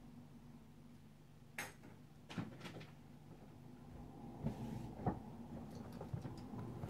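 Scattered small knocks and clicks, about five over several seconds, over a faint steady hum: a pet rat moving about its cage on pellet bedding right beside the camera.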